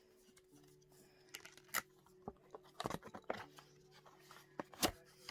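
Plastic packaging being handled: scattered crackles and clicks with a few sharper knocks.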